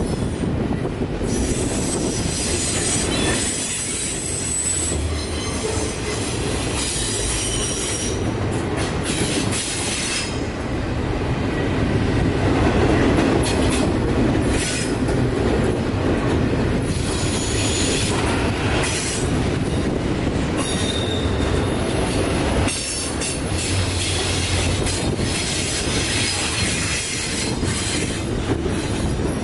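Double-stack container cars rolling past on a curve: a steady rumble of steel wheels on rail, with high-pitched wheel squeal that comes and goes several times.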